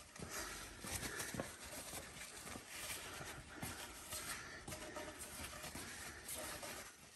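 Faint rubbing and rustling of a shop rag wiping out the inside of the axle housing's bearing bore, with small scattered scuffs.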